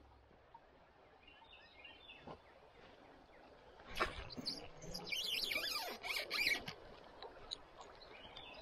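Small birds chirping and singing, most busily from about five seconds in, with one brief sharp knock about four seconds in.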